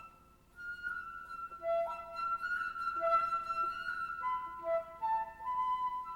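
Traditional Japanese instrumental music from a koto recording, with a flute-like melody line holding one long note for about three seconds before moving through shorter notes.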